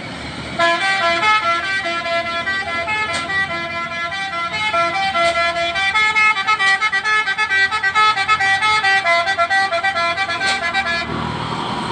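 Dump truck's telolet basuri horn, a multi-note musical horn, playing a quick melody of stepped notes that cuts off about a second before the end.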